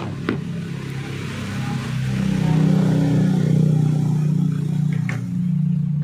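Low, steady engine hum, growing louder about two seconds in, with a small click near the start and another about five seconds in.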